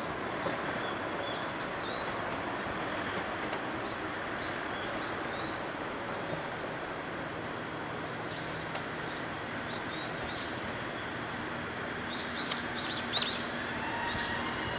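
A KiHa 110-series diesel railcar's engine runs with a low steady hum as the train draws slowly into the station, under a steady outdoor noise. Small birds chirp now and then, most densely a little before the end.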